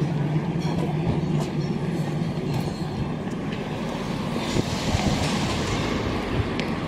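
Street traffic noise: a steady low rumble and hum, with a few faint scattered knocks.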